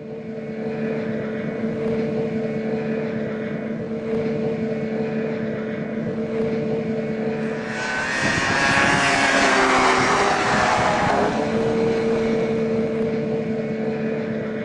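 Snowmobile engine running with a steady drone. Midway it grows louder and brighter for about three seconds with its pitch falling, then settles back to the steady drone.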